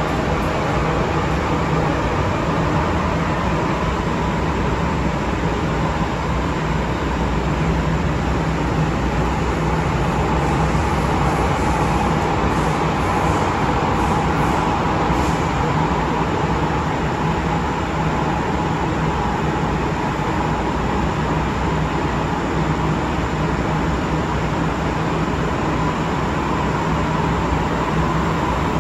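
MTR M-train electric multiple unit running at speed, heard from inside the car: a steady rumble of wheels on rail with a high whine from the traction motors and inverters, the whine growing stronger about halfway through.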